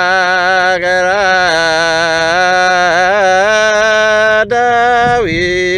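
Ethiopian Orthodox hymn chanted in long, drawn-out phrases, the voice wavering through ornamented notes over a steady low tone. There is a brief break about four and a half seconds in, and the pitch drops near the end.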